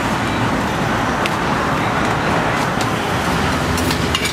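Steady outdoor street noise with passing traffic, with a few light clicks scattered through.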